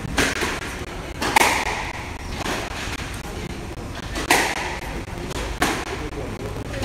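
Squash ball being struck by rackets and hitting the court walls during a rally: five sharp knocks a second or two apart, each with a short echo, the loudest about one and a half seconds in and just after four seconds.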